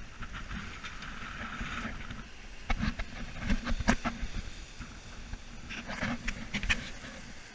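Sailboat under way at sea: a steady rush of wind and water, with clusters of short knocks and clatters a few seconds in and again near the end.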